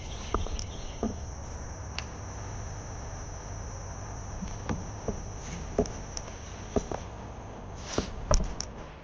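Insects chirring steadily in one high, even pitch, with scattered light clicks and knocks, a few louder ones near the end.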